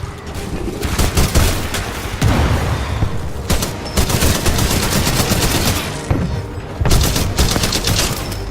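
Rapid gunfire, shot after shot in dense bursts.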